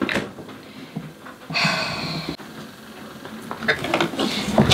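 Clattering of refrigerator shelves and contents with scuffling as a person is pulled out of a fridge.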